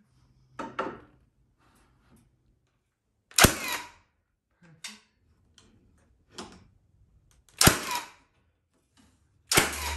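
Cordless framing nailer firing nails into timber studs: three loud sharp shots, a little after three seconds in, near eight seconds and right at the end, each with a brief ring after it. Fainter clicks come between the shots.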